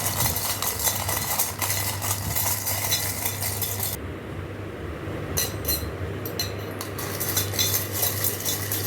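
Metal utensil clinking and scraping against a pan as chowmein noodles are stirred, in quick irregular clicks over a steady low hum.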